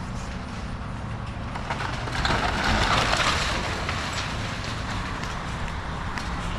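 Excavator's diesel engine running steadily while the house's timber and debris crunch and crash down for a couple of seconds, starting about two seconds in.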